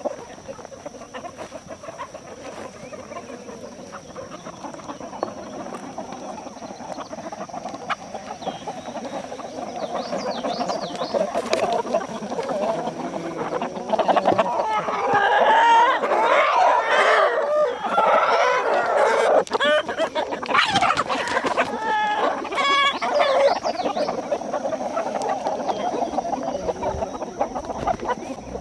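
A flock of young roosters clucking and squawking, with some crowing. The calls grow louder and busier from about halfway through.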